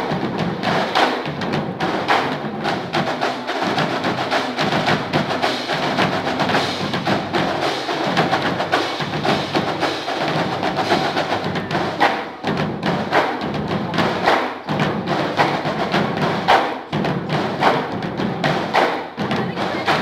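Music with a heavy, steady percussion beat.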